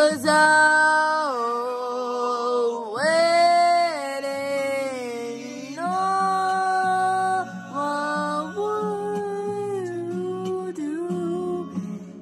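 A woman singing a slow ballad melody in long held notes that glide up and down between pitches.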